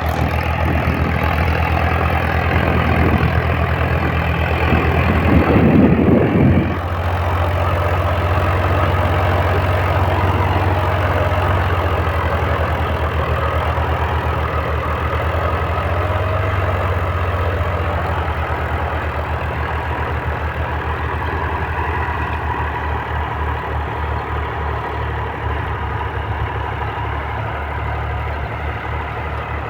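Tractor diesel engine idling steadily with a regular low firing beat, with a brief louder burst about five seconds in.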